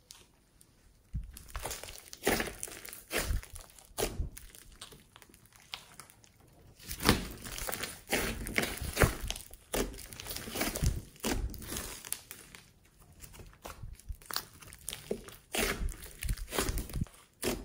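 Hands squeezing, stretching and kneading a large lump of glossy slime mixed with clay and foam beads, making irregular squishing and crackling sounds in short bursts that begin about a second in.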